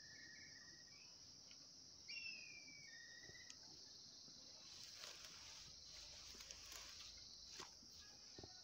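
Near silence: a faint, steady high-pitched insect drone, with a few short bird chirps and glides in the first three seconds. Faint rustling of leafy greens being handled comes around the middle and near the end.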